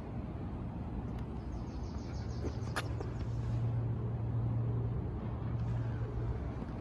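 Steady low outdoor hum that swells a little in the middle, with two sharp clicks, one about a second in and one near three seconds.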